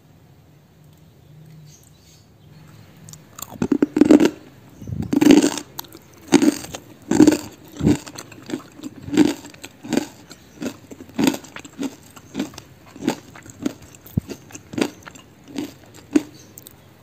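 Close-up crunchy chewing of a fried, flour-coated cassava snack (tela-tela). It starts about three seconds in with the loudest crunches and goes on at a steady rhythm of about one and a half chews a second.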